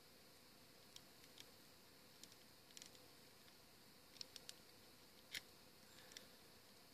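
Faint, scattered clicks and ticks of hard plastic toy parts being moved and snapped into place while transforming a Transformers Masterpiece Star Saber figure, about a dozen in all, the loudest a little past five seconds in.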